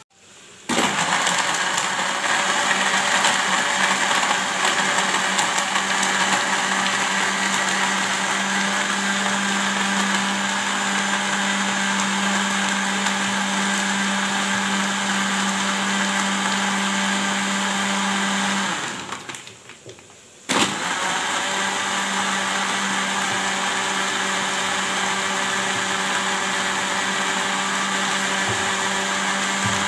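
Electric countertop blender running steadily, blending frozen strawberries, ice cubes and soda water into a purée. About two-thirds of the way through, the motor winds down and stops for a couple of seconds, then starts again abruptly and runs on.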